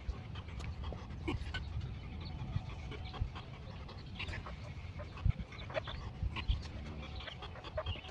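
A man panting hard from exertion during a weighted-vest squat and pull-up workout, over a steady low rumble, with a couple of sharp knocks in the second half.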